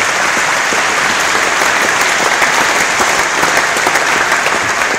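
Large audience applauding steadily, many hands clapping in a big reverberant hall.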